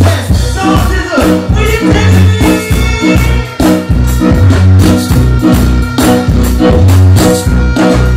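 Loud live band music with a heavy bass line and a steady beat, played through a stage PA.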